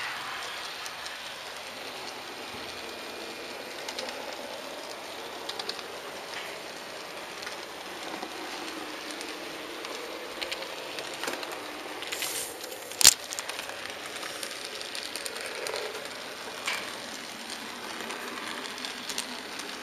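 HO-scale model train running along the track, a steady rolling rumble and hiss with scattered small clicks, and one sharp click about two-thirds of the way through.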